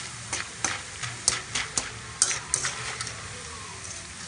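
Breadfruit sticks deep-frying in a wok of oil, sizzling as a wire spider strainer stirs and lifts them, with a string of sharp taps and clatters in the first three seconds. The dry, rustling "sarasara" sizzle is the sound the cook takes as the sign the sticks are fried crisp.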